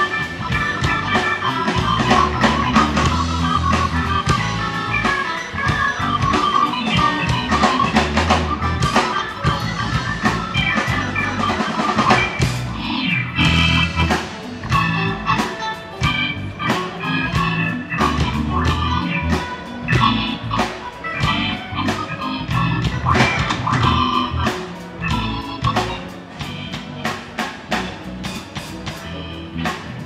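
Live band playing amplified rock during a soundcheck: electric guitar over a drum kit, with steady drum hits throughout. It gets a little quieter near the end.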